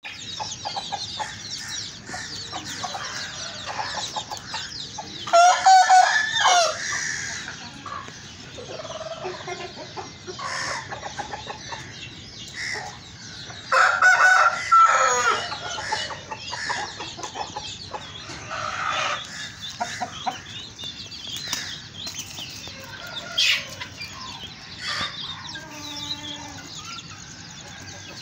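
Domestic chickens clucking continually, with roosters crowing loudly twice, each crow lasting over a second, and a shorter loud call near the end.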